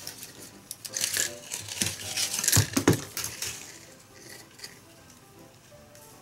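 Thin split-bamboo strips and a bamboo basket rim crackling, creaking and scraping in the hands as bamboo filler is pressed into the gap between the rim frames and bound with wire. A dense run of crackles and clicks in the first few seconds, then quieter handling.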